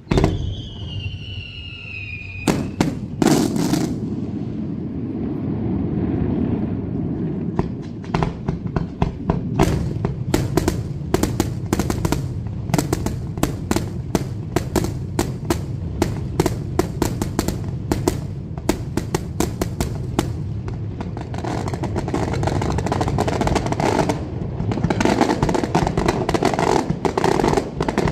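Daylight fireworks display. A descending whistle from a shell opens it, then come loud bangs and a long, dense run of rapid sharp cracks and reports from aerial shells bursting, over a steady low rumble. The crackling thickens again toward the end.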